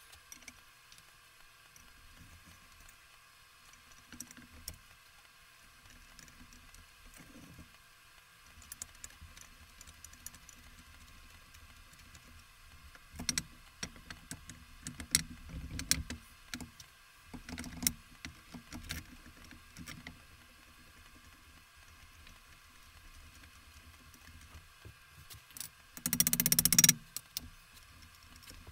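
Small metal parts clicking, tapping and knocking as hinge pivots are fitted by hand to a lathe headstock's top cover, busiest in the middle, with one louder rattling clatter lasting about a second near the end.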